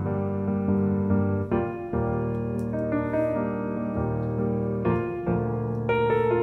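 Gentle background piano music, with a new chord struck about every second and a half.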